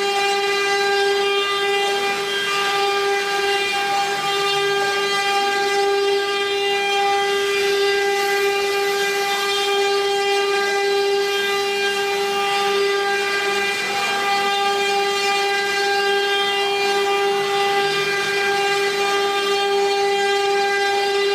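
Spindles of a 12-spindle cylinder-engraving CNC router running together as a loud, steady whine that holds one pitch. A fainter rushing sound swells and fades about every five seconds.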